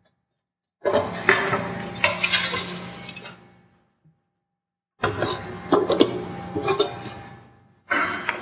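Hard plastic parts of a hybrid battery pack knocking and rattling as they are handled and fitted onto the cell stack, in two bouts of clatter, about a second in and again about five seconds in.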